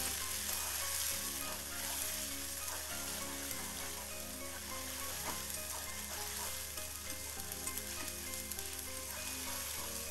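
Sliced onions, onion paste and green chillies sizzling in oil in a karahi, stirred with a steel spatula that scrapes across the pan. The onion mix is frying down into a masala base with a splash of water.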